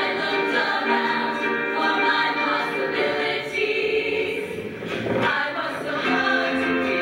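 Women's show choir singing in parts during a staged song-and-dance number; the sound thins and dips briefly around four to five seconds in, then comes back full.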